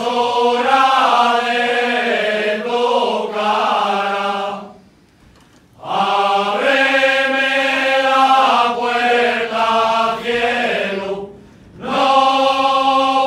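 Men's folk choir (a ronda) singing unaccompanied in long held phrases, with two short breaks between phrases, about five seconds in and again near the end.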